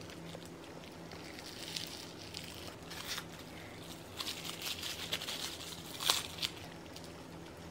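Plastic cling wrap crinkling in short spells as it is peeled off and handled around a cream-filled fruit sandwich, with the sharpest crackle about six seconds in.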